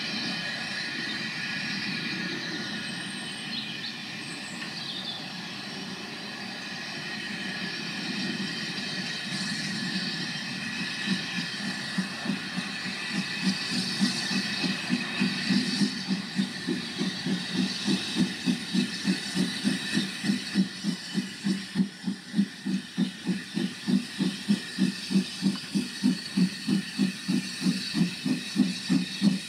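Bagnall saddle-tank steam locomotive No. 2 approaching with its train. Its chuffing exhaust beats come through about a third of the way in and grow steadily louder in an even, quick rhythm as it nears.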